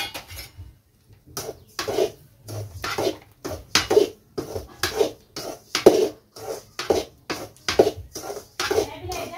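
Metal spatula scraping and stirring dry semolina in a steel kadai as it is dry-roasted, in short strokes about two a second. A sharp knock at the very start, then the stirring begins about a second in.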